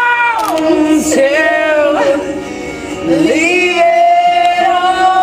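Two women singing a karaoke duet into a microphone over a backing track, holding long notes, with a softer passage midway before one long sustained note.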